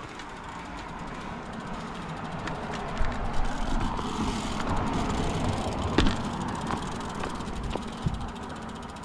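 A road vehicle passes, its engine and tyre noise swelling over several seconds and then fading. A few sharp clicks sound as a road bicycle comes to a stop.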